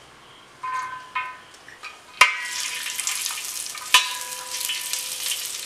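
Cashew nuts dropped into hot ghee in a metal uruli: a few ringing clinks as the first ones hit the pan, then steady sizzling from about two seconds in. Two sharp metal knocks, about two and four seconds in, leave the pan ringing.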